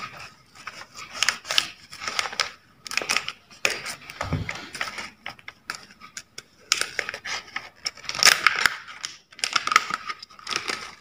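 Scissors cutting open a plastic packaging pouch, then the pouch crinkling and rustling in a string of irregular bursts as it is pulled open and a plastic bag is drawn out of it.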